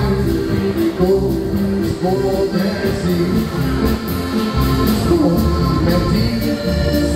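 A live polka band playing a polka on accordion, trombone, upright bass and drum kit, heard over the band's PA. A steady two-beat bass line runs under it, with even cymbal strokes on the beat.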